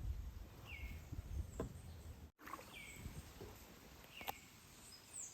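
Faint outdoor ambience with a bird giving a few short, falling chirps, and a couple of light clicks.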